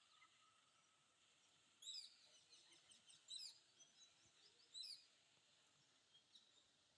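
Red-wattled lapwing calling: three sharp, high calls about two, three and a half and five seconds in, with fainter chirps between them.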